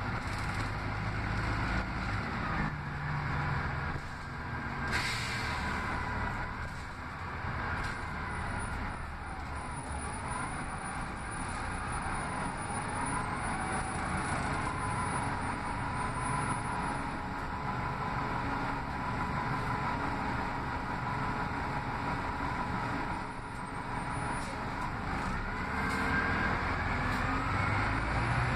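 Cabin of an Orion VII CNG city bus under way: the engine and drivetrain run steadily under road noise and interior rattles. A whine rises and falls several times, and there is a single sharp knock about five seconds in.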